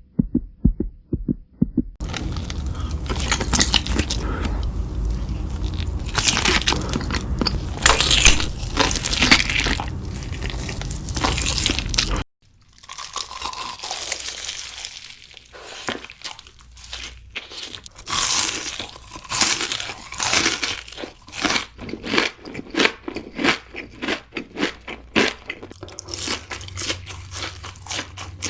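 Close-miked mukbang eating sounds: crisp food being bitten and chewed with loud crunches. About halfway through, a cut to another clip with sharper, more separate crunches. It opens with a few low thumps.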